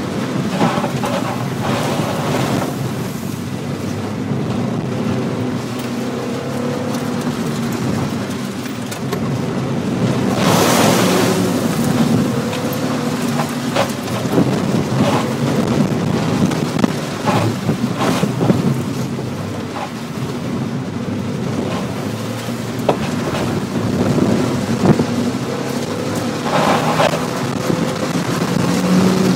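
Mazda Miata's four-cylinder engine pulling through an autocross run, heard from inside the cabin, with the tyres hissing and water spraying on wet pavement. A louder rush of noise comes about ten seconds in.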